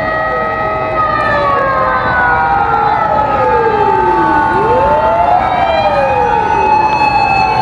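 Several emergency-vehicle sirens sounding at once. A steady siren tone stops about a second in, then several wailing sirens glide up and down across each other, one sweeping up from low around the middle.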